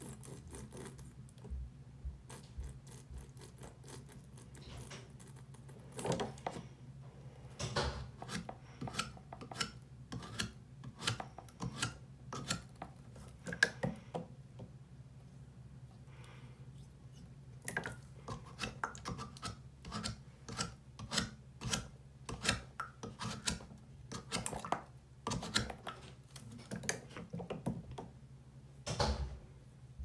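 A stick of red chalk scraped and rubbed against the mouth of a plastic water bottle in short, irregular strokes, grating chalk into the water to dye it. The strokes are sparse at first and come thick and fast from about six seconds in.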